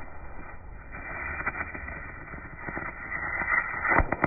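Arc welding tacks on 3/16-inch cold-rolled steel rod: a steady crackle of the welding arc with scattered sharp pops, louder near the end.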